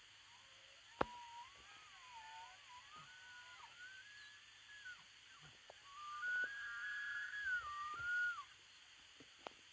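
Bull elk bugling: a high, wavering whistle that climbs and dips in pitch, in two long stretches, the second louder. A sharp click comes about a second in.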